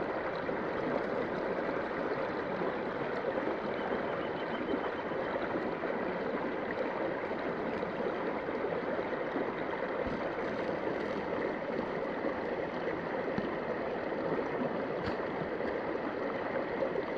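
A shallow river running over rocks, a steady rush of water.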